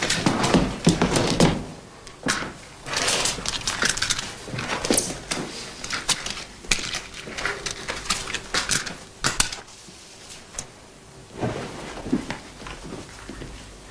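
Irregular knocks, scrapes and shuffling of people moving about on a wooden parquet floor, including a wooden chair pulled out and sat on.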